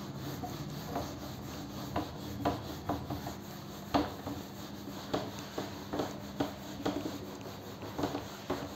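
Whiteboard duster wiping a whiteboard clean: short scrubbing strokes, repeating roughly twice a second.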